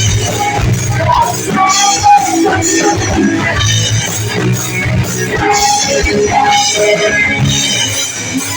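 Live rock band playing a song: guitar over a drum kit, with a melodic line running above.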